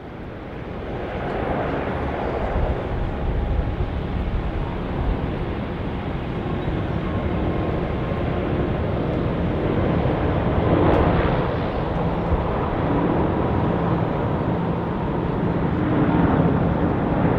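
Airbus A380 jet engines at takeoff power. The noise builds over the first couple of seconds and then holds loud and steady as the airliner rolls down the runway and lifts off.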